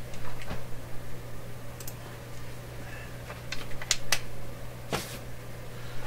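Scattered light clicks and taps from small parts and tools being handled while working a wire on a clock radio chassis, over a steady low hum.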